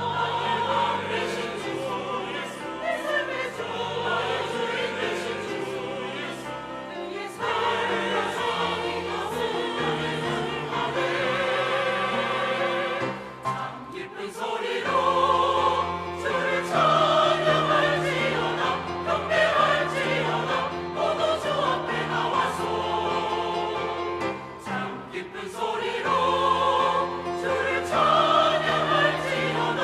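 Church choir singing an anthem. Its phrases break briefly about 7 s and 14 s in, and it sings louder through the second half.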